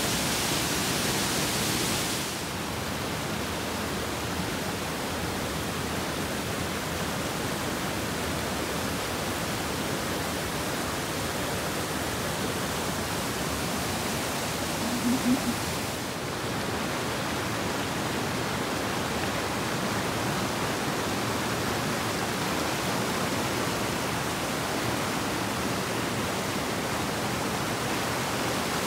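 Virgin Creek Falls' whitewater rushing down through a rocky gorge: a steady wash of water noise. Its hiss turns duller about two seconds in and brighter again a little past the middle. A brief low sound is heard just before that change.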